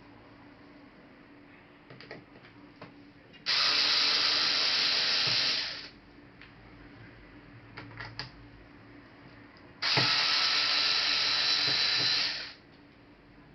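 Small electric screwdriver running in two bursts of about two seconds each, driving laptop case screws, with a few light clicks of handling between.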